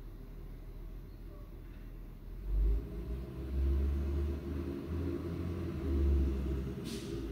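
Autocar WX64 garbage truck's engine accelerating as it pulls away, a low pulsing rumble that builds a few seconds in, with a short hiss near the end.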